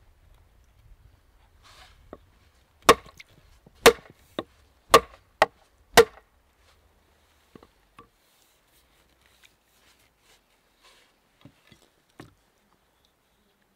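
Axe knocking against a wooden peg set in a raft log: six sharp blows over about three seconds, followed later by a few light taps.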